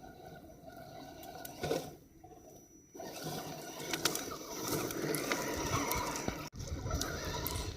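Axial SCX10 Honcho RC crawler truck's electric motor and gears running, with a faint high whine and scattered ticks and clatter. The sound is low for the first three seconds apart from one short burst, then louder, with a brief break past six seconds.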